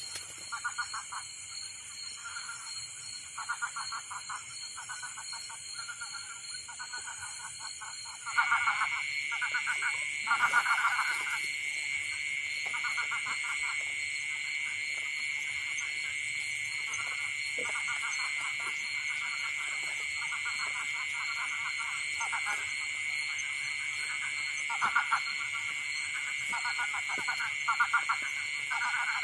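Night chorus of insects and frogs: several steady high insect trills, with frogs calling in short pulsed bursts again and again. About eight seconds in, a louder steady insect trill starts and holds.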